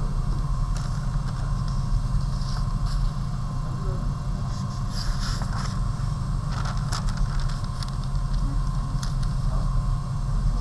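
Steady low hum, with light rustling and soft taps of sheets of tracing paper and drawing paper being handled and laid over one another.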